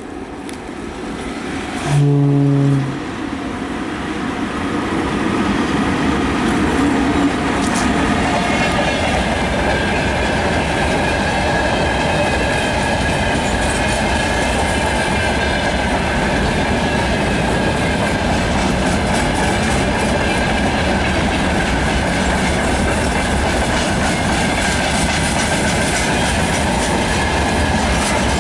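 Freight train hauled by two VL10U electric locomotives passing close by. About two seconds in there is one short, low horn blast. After it the locomotives and a long line of freight wagons roll past in a steady, loud rumble, with the clickety-clack of wheels over rail joints.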